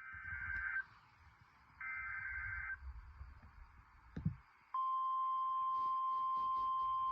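Emergency alert tones as broadcast on NOAA Weather Radio. Two short, buzzy two-pitch data bursts about a second apart mark the end of a SAME digital header. About five seconds in, the steady single-pitch warning alarm tone near 1 kHz begins and holds, over low radio static.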